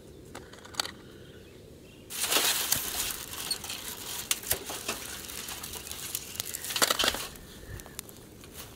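Dry grass tinder being bunched and twisted by hand, a dense rustling and crunching from about two seconds in until about seven seconds, with a last loud crunch just before it stops.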